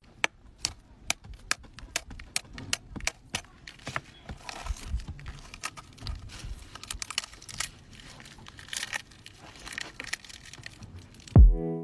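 A run of sharp, irregular clicks and crinkly rustling, several a second. Music with a heavy bass beat starts near the end.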